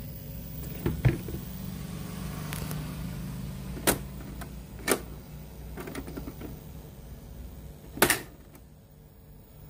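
A handful of sharp clicks and knocks, the loudest about eight seconds in, over a steady low hum.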